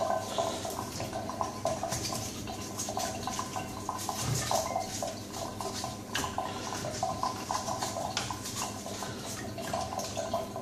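Water splashing and running in a stainless-steel kitchen sink as protein-skimmer parts are rinsed and scrubbed by hand, with many small clicks and knocks.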